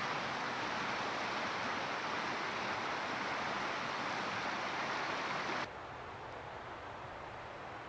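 Steady rush of a river flowing past. A little over halfway through it switches abruptly to a quieter, duller rush.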